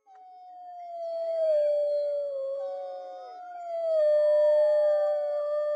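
Wolves howling together: long, held howls that slide slowly down in pitch. A second howl joins about three seconds in and overlaps the first, with a higher voice weaving above them.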